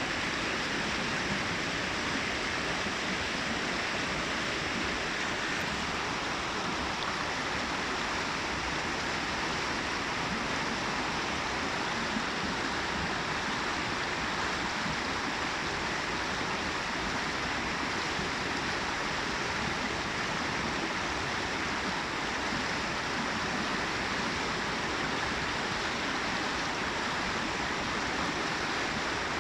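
Water cascading through a small babbling brook, a steady rushing and babbling that holds even throughout.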